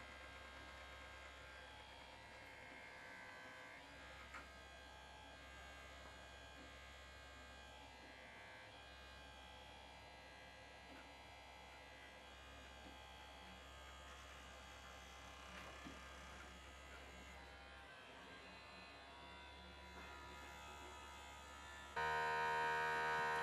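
Battery motor of a children's vibrating toothbrush buzzing steadily inside a floating aluminium-foil takeaway tray, faint at first. About 22 s in the buzz suddenly becomes much louder and clearer.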